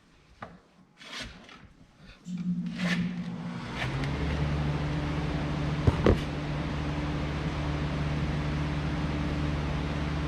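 A few light knocks, then a motor-driven machine starts a little past two seconds and runs with a steady hum, joined by a pair of sharp knocks around six seconds.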